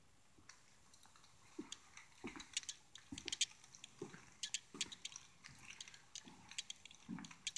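Faint footsteps on bare plywood stair treads and subfloor, a soft thud about every three-quarters of a second, each with light clicks and scuffs.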